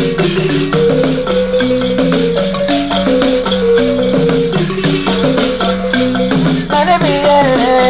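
Balafon, the West African wooden xylophone, playing a fast repeating melody over a shaken rattle. A voice starts singing near the end.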